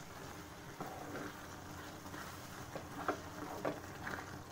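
Wooden spatula stirring wet spinach and peas in a nonstick kadhai: faint, soft scrapes and squelches, several separate strokes.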